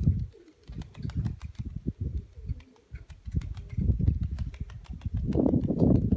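Domestic pigeon cooing, loudest near the end, over a rumbling, uneven low noise with faint clicks.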